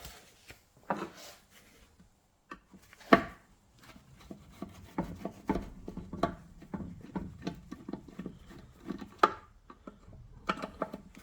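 Screwdriver undoing the screws that hold a Briggs and Stratton carburettor to its fuel tank: a run of small clicks and scrapes of the tool working the screws, with a sharper click about three seconds in and another near the end.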